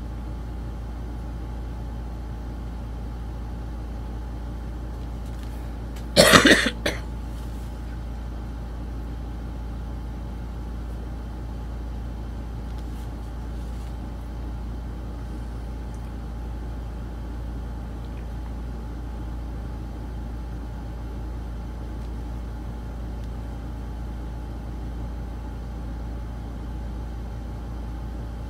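A steady low background hum, broken about six seconds in by one short, loud cough.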